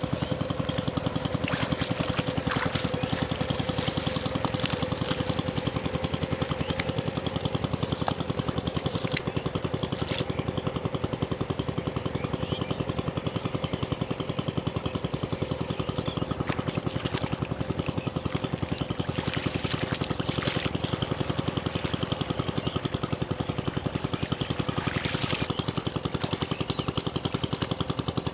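A small engine running steadily with a fast, even beat, with water splashing and trickling over it.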